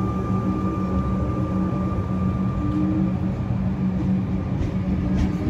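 Comeng electric multiple unit, a Melbourne suburban train, rolling slowly past the platform. It gives a steady low electrical hum over a rumble, with a thin high whine that fades out about halfway through.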